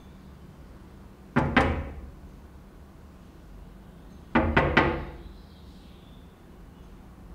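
Knocking on an apartment door: two quick knocks, then about three seconds later three more.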